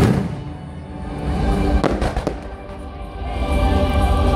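Fireworks going off: a sharp bang right at the start and two more about two seconds in, over music playing steadily underneath.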